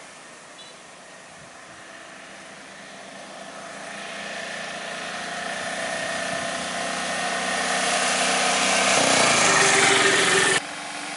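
Road traffic: a bus and a three-wheeler auto-rickshaw driving past, their engines growing steadily louder as they approach, peaking as they pass, then cutting off abruptly near the end.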